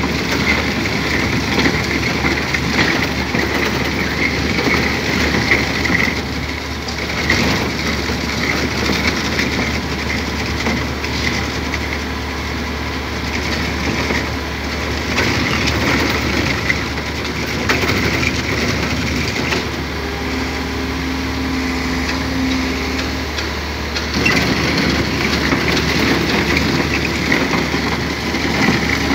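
Excavator-mounted rotary drum cutter grinding into a concrete and rock wall: a continuous rough grinding rattle over the steady drone of the Liebherr excavator's engine.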